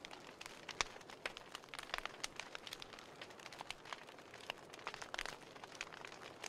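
Burning book pages crackling, with frequent irregular sharp pops and ticks over a faint steady hiss.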